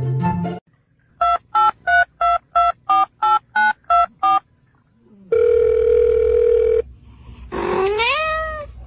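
Ten short two-tone telephone keypad beeps, about three a second, then a steady telephone tone for about a second and a half. Near the end, a cat meows once with a rising pitch. A brief snatch of music opens it.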